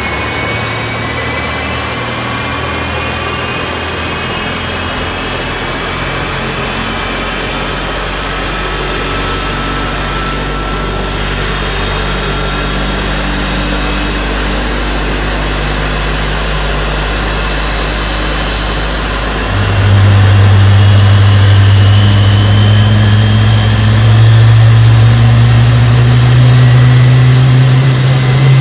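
Jet aircraft engines running, with a high turbine whine that rises slowly over a steady low hum. About twenty seconds in, a much louder, deeper drone sets in as the engines come up to higher power.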